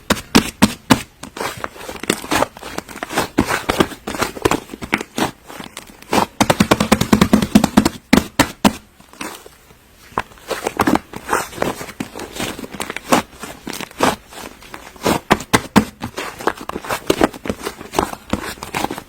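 Slime being squeezed and poked by hand, giving fast, irregular popping and crackling clicks as air pockets burst, with a brief lull about nine seconds in.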